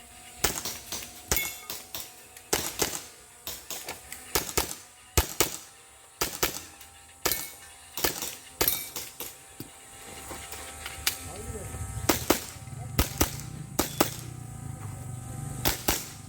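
Airsoft pistol shots fired in quick irregular strings, about two dozen sharp cracks with short pauses between them, during a timed practical shooting stage.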